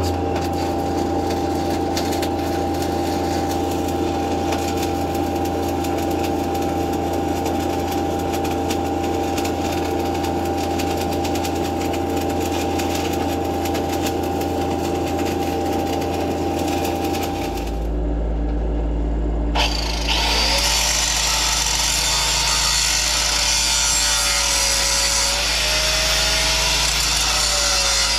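Stick welding with a 3/32-inch 7018 rod on carbon steel: a steady crackling arc over the low hum of the welding machine for about the first seventeen seconds. The arc then stops and the hum drops lower. After a click about twenty seconds in, an angle grinder starts grinding the steel with a hissing, wavering whine.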